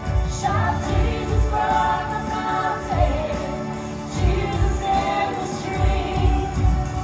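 Live gospel worship music: a band with a steady beat of about two drum hits a second under sustained keyboard chords, with singing.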